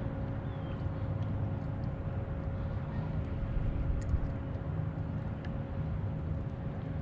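Steady low drone of an engine with a constant hum, overlaid by a few light clicks and a small knock about four seconds in.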